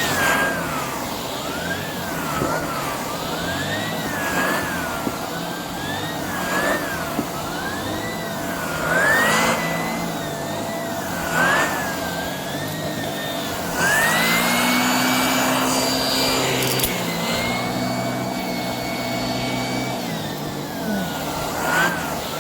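Shark handheld vacuum cleaner running, its motor whine wavering up and down over and over, then about two-thirds of the way through rising to a higher pitch and holding steady before sagging again near the end.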